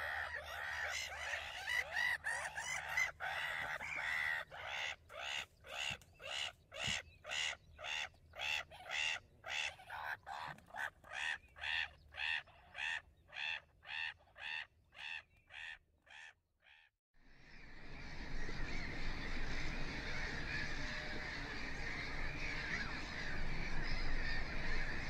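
Gull colony calling in a dense, continuous clamour. Partway through the sound comes in even pulses about two a second, fades out briefly, then the clamour of many calling gulls returns.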